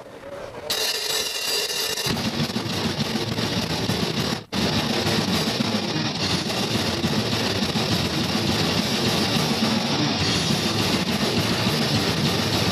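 Live band playing loud, noisy music with distorted electric guitar: a thinner guitar noise at first, the low end filling in about two seconds in, then a dense full-band wall of sound after a brief dropout about four and a half seconds in.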